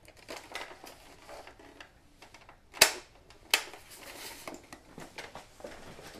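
Handling noise from a portable cassette radio: small plastic clicks and rustling, with two sharp clicks about three and three and a half seconds in.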